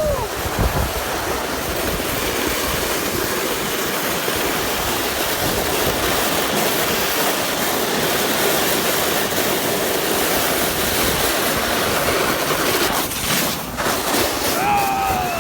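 Sled sliding fast down an icy road: a steady, loud scraping rush of the runners over ice, mixed with wind on the microphone. Near the end there is a short falling yell.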